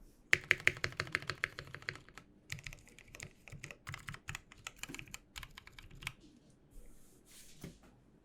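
Typing on a custom mechanical keyboard with Zealios tactile switches. A fast, dense run of keystrokes comes first, then shorter bursts of key presses that thin out after about six seconds.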